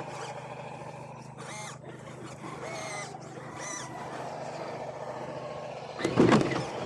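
RC scale crawler's electric motor and geartrain whining steadily as the truck creeps along, with a loud scraping knock about six seconds in.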